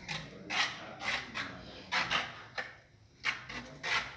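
Trowel scraping and spreading wet mortar across the ribbed back of a large ceramic tile, a series of short, irregular scrapes about two a second.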